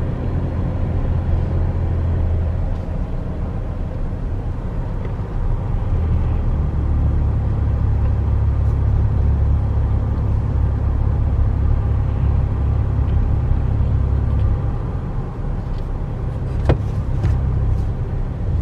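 Steady low road and engine rumble inside the cabin of a car driving on a highway, with a single sharp click near the end.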